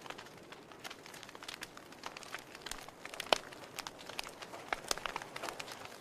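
Wood fire in a fireplace crackling, with irregular sharp pops and snaps from the burning logs and embers over a soft hiss; the loudest pop comes a little past the middle.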